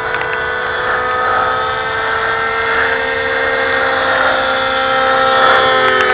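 Motor of a radio-controlled foam model jet running with a steady whine, its pitch dipping slightly near the end.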